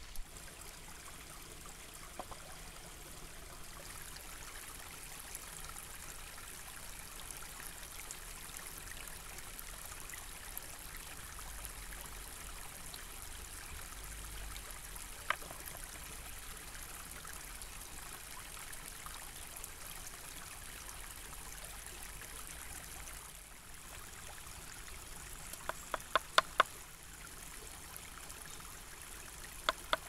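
A stream running steadily, with one sharp click about halfway through and a quick run of five or six sharp clicks near the end.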